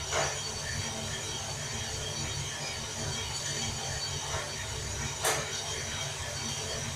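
Prototype drum coffee roaster running: the motor hums steadily while the rotating drum tumbles green, unroasted coffee beans with a rattling, ratchet-like clatter. Brief swishing sweeps stand out just after the start and again about five seconds in.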